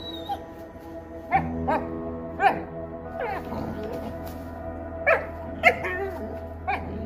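Lycan Shepherd puppies yipping and barking in play, about six short sharp calls and one falling whine, over steady background music.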